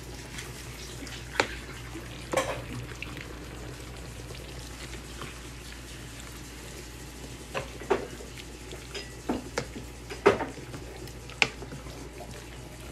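A utensil stirring ground beef and pork in tomato sauce in a pan on the stove. Under it is a steady cooking hiss, and scattered sharp knocks and scrapes sound as the utensil hits the pan, the loudest about ten seconds in.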